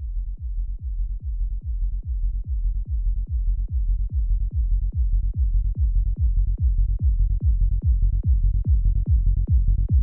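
Psytrance kick drum and rolling synth bass playing a steady four-on-the-floor pattern, about two and a half kicks a second, muffled with only the low end heard, slowly getting louder.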